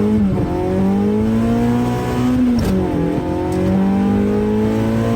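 Car engine at high revs under hard acceleration, its pitch climbing steadily. The pitch dips sharply about half a second in and again near three seconds in, as the car shifts up a gear.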